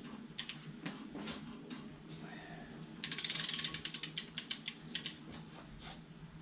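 Torque wrench clicking and ratcheting: a few separate clicks, then a quick run of ratchet-pawl clicks about three seconds in, then more scattered clicks. It is being worked against a socket at a 110 ft-lb setting.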